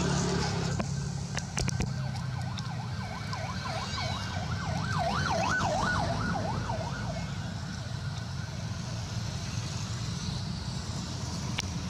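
A siren in the distance, its pitch rising and falling quickly and evenly, about three times a second, for several seconds before fading, over a steady low hum.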